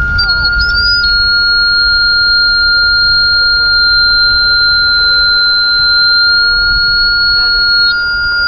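Steady electronic sine tones as part of an improvised experimental music piece. One pure tone is held unchanged throughout. A thinner, higher tone enters about a second in, drifts slightly in pitch and steps up near the end, all over a low rumble.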